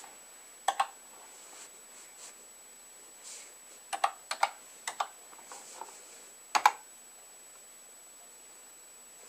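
Keys on a BBC Micro Model B keyboard being pressed, sparse sharp clacks in small groups: two near the start, a quick run of about five in the middle, and a pair about two-thirds of the way through.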